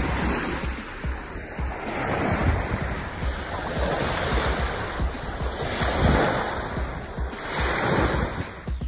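Wind buffeting the microphone over rushing, splashing water, coming in uneven gusts.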